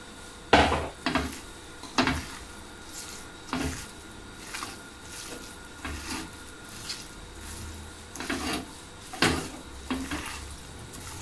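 Hands mixing raw anchovies and crushed coconut in a cooking pot: about a dozen irregular knocks and clatters of hand and pot, the loudest about half a second in.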